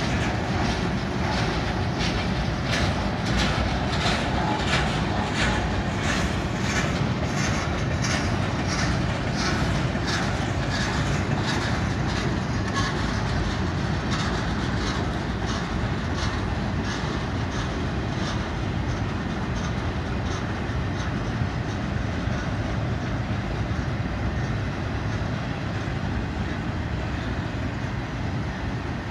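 Freight cars of a slow-moving manifest train rolling past: a steady rumble of steel wheels on rail with a regular clickety-clack, about two clicks a second, that fades out about halfway through.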